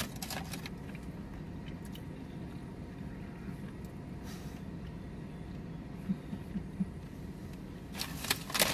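Steady low hum of a car cabin under faint chewing of a mouthful of burrito, with a cluster of clicks and rustles near the end as the burrito is handled.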